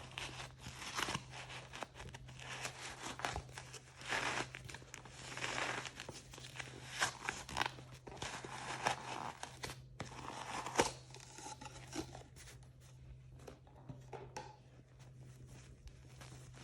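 Plastic blind-bag packaging being handled by hand, crinkling and tearing open in irregular rustles with sharp clicks, busiest in the first two thirds and quieter near the end. A steady low hum sits underneath.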